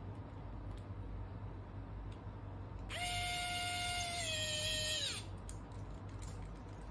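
Electric precision screwdriver running for about two seconds, driving a small M2 screw into a servo bracket: a steady motor whine that dips slightly in pitch partway through.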